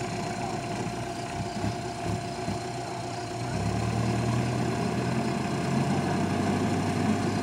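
Belarus 920 tractor's diesel engine running at idle. About three and a half seconds in it gets louder and deeper.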